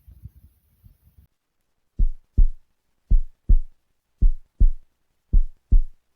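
A slow human heartbeat: strong low double thumps (lub-dub) repeating about once a second, starting about two seconds in after faint low rumbling.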